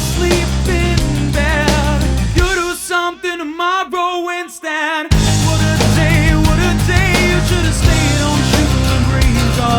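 Rock music with a wavering lead line, likely sung. From about two and a half seconds in, the bass and drums drop out, leaving the higher parts alone, and the full band comes back in abruptly about five seconds in.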